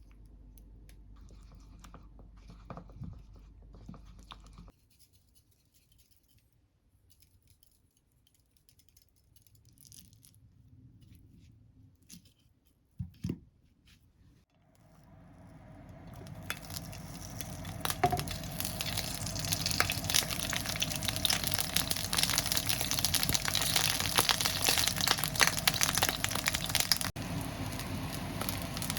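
Faint kitchen handling sounds and a couple of knocks, then about halfway through a frying pan starts sizzling, growing louder over a second or two and then crackling steadily.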